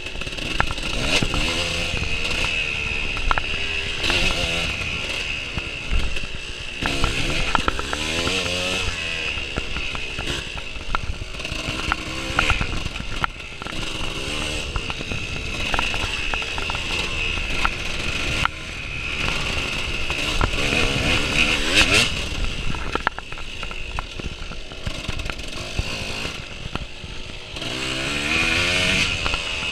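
Dirt bike engine being ridden hard on a trail, its pitch rising and falling over and over as the throttle is worked and gears change. Wind rush and a few sharp knocks from the bike hitting bumps run along with it.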